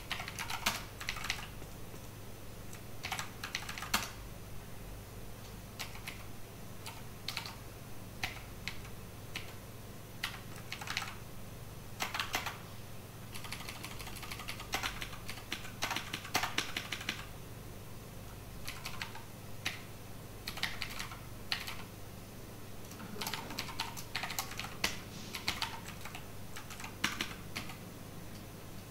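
Typing on a computer keyboard: irregular runs of keystroke clicks with short pauses between, over a steady low hum.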